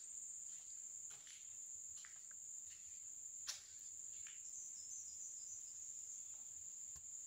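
Steady high-pitched drone of insects, with a few faint knocks, the clearest about three and a half seconds in.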